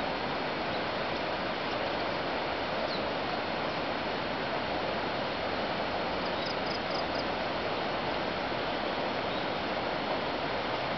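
Steady rushing of a river far below, an even unbroken noise, with a short run of faint high chirps about six and a half seconds in.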